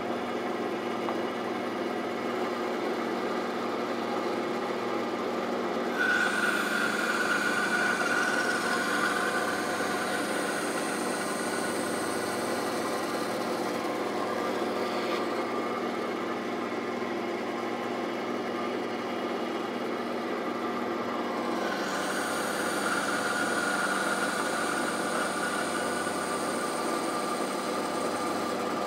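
Bandsaw running steadily while its blade makes two angled cuts into the end of a thick wooden rail for dovetail tails. Each cut adds a higher hiss and whine lasting several seconds: the first starts about six seconds in and stops about fifteen seconds in, and the second starts about twenty-two seconds in.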